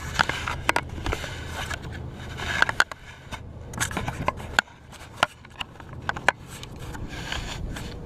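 Handling noise: a run of short sharp clicks and scrapes, with a few louder clicks scattered through it, over a steady low rumble.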